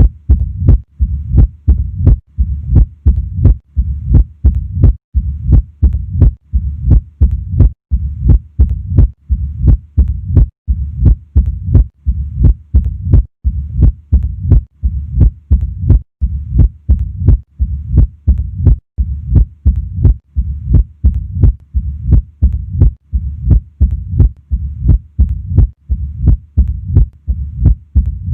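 Heart sounds of mitral stenosis auscultated at the apex: a regular run of sharp heartbeats with a low murmur filling the gaps between them.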